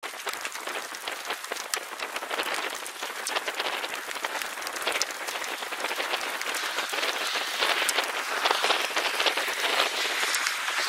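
Steady rain falling, a hiss dense with fine drop ticks, growing slightly louder toward the end.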